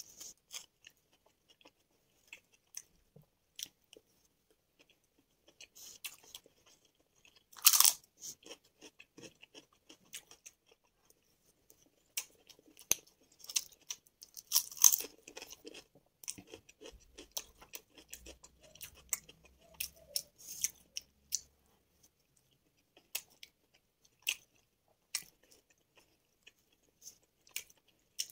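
Close-miked eating: chewing with sharp, crisp crunches from biting ridged salted potato chips, the loudest crunch about eight seconds in and a run of loud crackling around fifteen seconds in, between quieter chewing of spiced rice.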